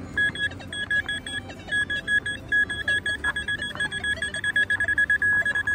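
Metal detector beeping at one high pitch, pulsing rapidly and quickening into an almost continuous tone near the end as it closes in on a target in the hole, which turns out to be a zinc penny.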